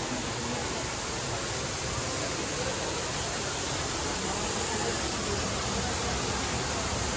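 Steady rush of falling water from a waterfall: an even, unbroken roar.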